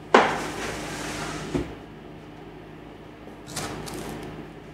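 Metal baking tray loaded with scones slid onto the deck of a professional deck oven: a sharp clatter, a scrape, then a knock about a second and a half in. Near the end a shorter scrape as another tray is pulled across the stainless steel bench, over a steady low hum of the bakery equipment.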